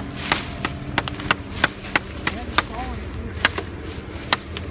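Hatchet chopping into a wooden tree stump, a steady run of sharp blows about three a second.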